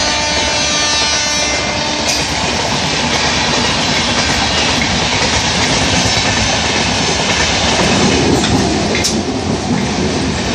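Passenger express train passing at speed close by: a loud, steady rumble and clatter of wheels on rail. A horn note dies away in the first second or so.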